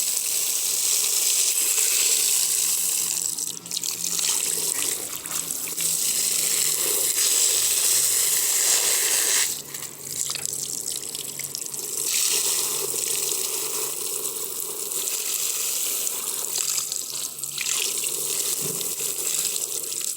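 Heavy rain pouring down steadily in a severe storm, a dense hiss with brief lulls, and a faint low hum underneath.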